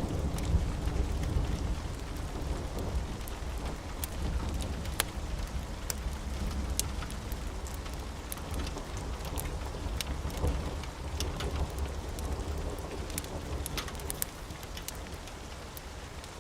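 Steady rain with a low rolling rumble of thunder that fades near the end, and scattered sharp pops and crackles from a burning wood fire.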